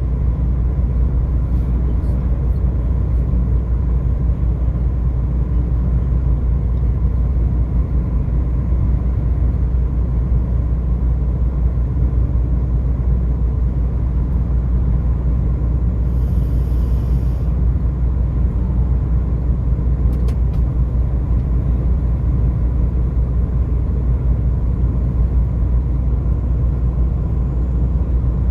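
Steady low rumble of a car travelling along a highway: engine and tyre road noise at an even speed. A brief high-pitched sound occurs a little past halfway.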